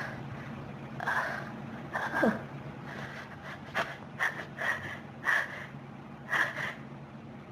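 A person in a sneezing fit: a run of about eight short, sharp sneezes and wheezy, snorting breaths, one of them with a falling voiced sound.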